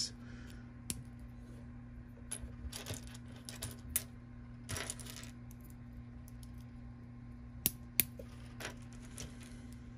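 Small LEGO plastic pieces clicking and rattling by hand as parts are sifted and pressed onto a minifigure stroller, a scatter of light sharp clicks with two close together near the end. A faint steady hum runs underneath.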